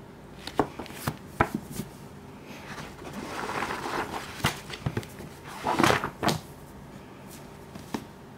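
Thick paperback manga omnibus handled with gloved hands: a few taps and knocks of the book in the first two seconds, then its pages riffled, with a louder flutter of paper about six seconds in and a single tap near the end.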